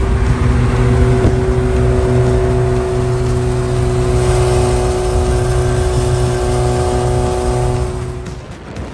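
Sports car engine running at a steady speed with road and wind noise, heard from a moving car; it fades out near the end.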